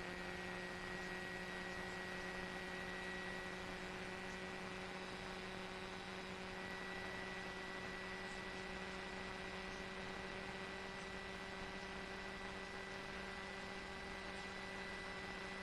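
Steady electrical hum with fainter steady tones above it over a light hiss, unchanging throughout: line hum on the audio feed.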